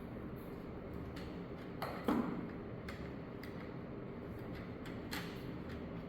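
Scattered light clicks and taps of hands working on small computer parts, with one louder clack about two seconds in and a smaller one near five seconds, over a steady low room hum.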